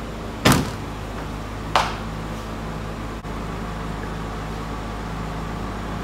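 Car boot lid slammed shut, one loud thump about half a second in, followed by a lighter click over a second later, over a steady low hum.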